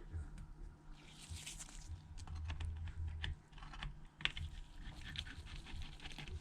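Light, irregular clicks and taps of a precision screwdriver and tiny screws being handled while the internal plate's screws are taken out of an iPhone 7 Plus, with a short scraping hiss about a second in.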